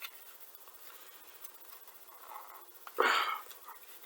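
A few faint ticks of small parts being handled, then a short, sharp breath about three seconds in.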